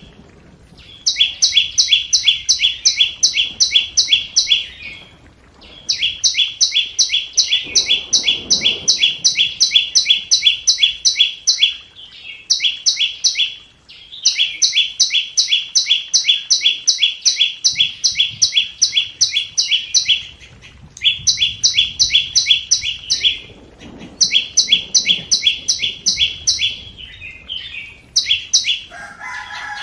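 Flowerpecker calling: rapid sharp ticking notes, about five a second, in runs of several seconds broken by short pauses.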